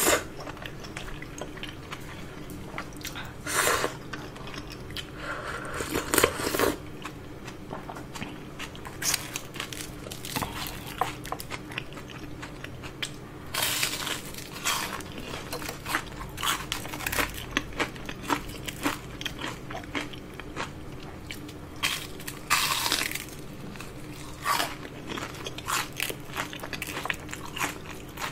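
Close-miked eating: a few slurps of udon noodles, then crisp crunchy bites and chewing of fried shrimp tempura, with many small crackles throughout.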